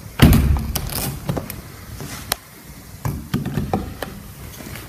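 Handling noise: a heavy thump about a quarter second in, then a series of scattered light knocks and clicks as things are moved and bumped near a door.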